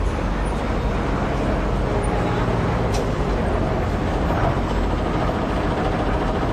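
Old lorry's engine running steadily as the truck rolls up and comes to a stop, with a light click about three seconds in.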